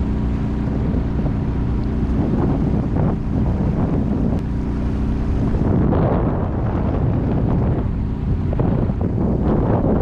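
Boat's outboard motor running steadily underway, with wind buffeting the microphone.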